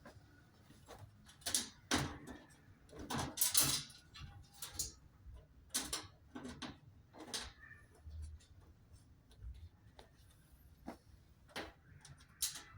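Irregular knocks, clicks and rattles of parts and tools being handled during work on a washing machine, with no machine running.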